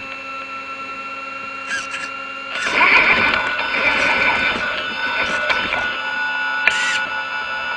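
Sensored brushless motor of an ARRMA Big Rock 3S RC truck whining steadily as it crawls slowly. Its tyres and chassis rattle over the ridges of a corrugated metal pipe, louder from about three seconds in. Two brief high hisses come near two and seven seconds.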